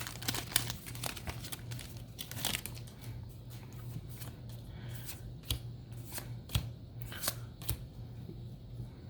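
Yu-Gi-Oh! trading cards and booster packs being handled: scattered light clicks and taps over a steady low hum.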